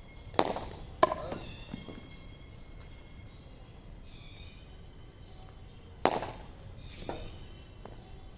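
Cricket ball impacts: two sharp cracks near the start about half a second apart, and two more about six and seven seconds in, over a steady high-pitched tone.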